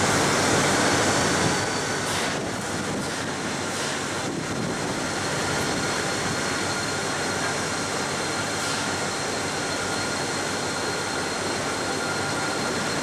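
BL class diesel-electric locomotive running while it shunts a rake of loaded grain hopper wagons: a steady engine noise with high whines on top, a little louder in the first second and a half.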